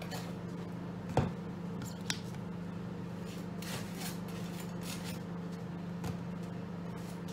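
Microwave oven running with a steady hum while it cooks bacon, under the scrape of a knife spreading margarine on bread. A sharp knock about a second in, and a smaller click shortly after.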